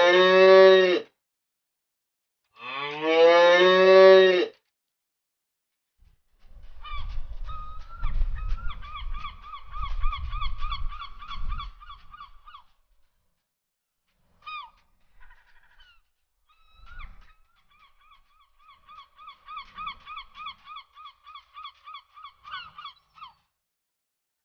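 Two long cow moos, each pitch rising then falling, followed by two runs of rapid, evenly repeated calls from farm fowl with a short break between them.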